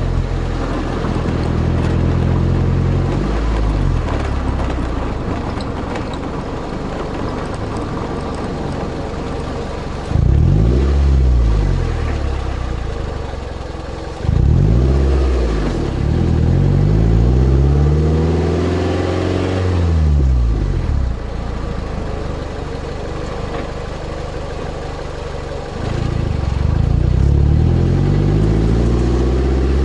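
2003 Toyota MR2 Spyder's 1ZZ-FED four-cylinder engine heard close at the tailpipe through a Powerhouse Amuse Titanium Extra titanium cat-back exhaust. The note drops away about three seconds in, then the revs rise and fall several times, one swell held longer near the middle, and climb again near the end.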